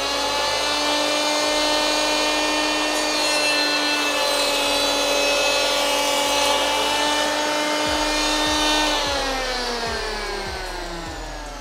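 Bosch GHO 26-82 D electric planer, set up as a stationary planer, running at speed with a steady high motor whine while a wooden strip is fed along its V-groove to chamfer the edge, with cutting noise over the whine. About nine seconds in it is switched off and the motor winds down, its pitch falling.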